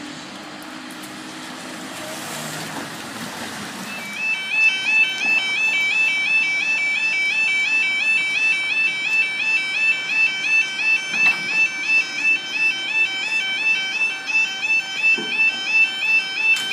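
Level crossing audible warning alarm sounding as the barriers prepare to lower. It starts abruptly about four seconds in, a loud, high two-tone warble switching rapidly back and forth between two pitches.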